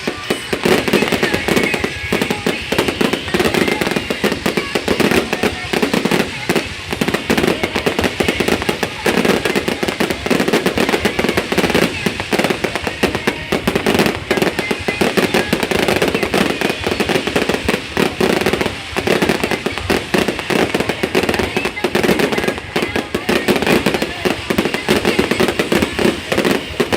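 Fireworks going off in a dense, continuous barrage: rapid overlapping bangs and crackles with no pause.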